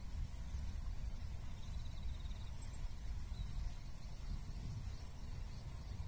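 Outdoor field ambience: a low, fluctuating rumble with faint, rapid insect chirping high above it and a brief fast ticking trill about two seconds in.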